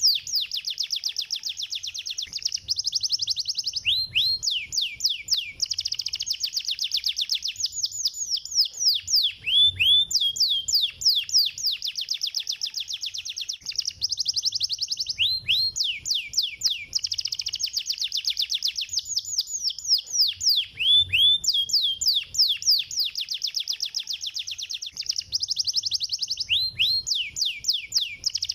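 Domestic canary singing fast, tightly packed trills of rapid high notes. The same song phrase comes round about every five and a half seconds with short breaks between, a looped master recording played to set other canaries singing.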